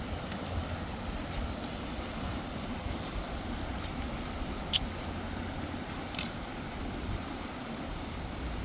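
Steady outdoor rushing noise, with two short sharp clicks a little past the middle.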